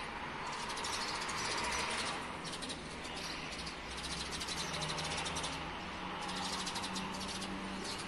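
Many small birds chirping and chattering at once in the trees, a dense continuous chorus that swells and dips.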